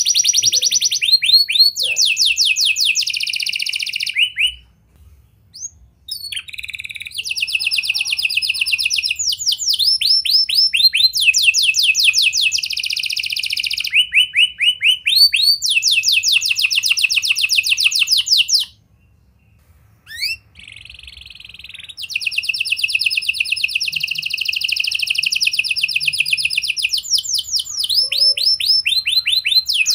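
Domestic canary singing a long song of fast rolling trills, each a rapid run of repeated notes that changes pitch from one run to the next. The song breaks off briefly twice, about five seconds in and again near twenty seconds.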